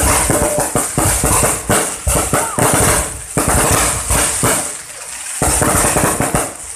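Aerial fireworks bursting close overhead: a rapid, continuous run of bangs, pops and crackling. It eases briefly about five seconds in, then picks up again.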